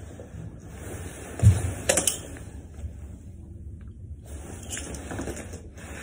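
A man in a suit kneeling and bowing down into prostration on the floor: cloth rustling, a dull thump about a second and a half in as he goes down, then a few sharp clicks.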